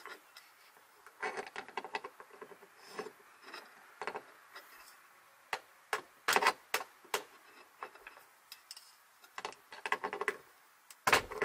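Irregular handling sounds from work on the boat's seat mechanism: scattered knocks, clicks and rubbing, with a cluster of sharper clicks about six to seven seconds in and a heavier knock near the end.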